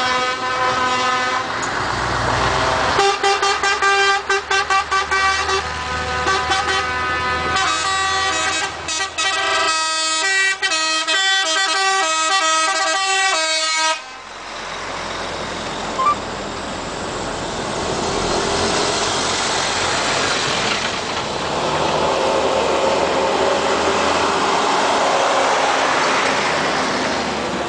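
Truck air horns blowing: many short, rapid blasts, then longer chords that change pitch in steps, cutting off sharply about halfway through. After that comes the steady noise of trucks' engines and tyres going by.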